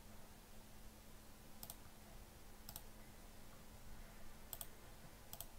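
Faint computer mouse clicks, four of them spread through a few seconds, each a quick press-and-release pair, over a low steady hum.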